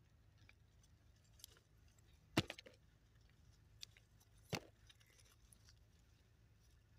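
Pea pods being snapped off the vines by hand: a few short, sharp snaps, the loudest a little over two seconds in with smaller clicks right after it, and another about four and a half seconds in.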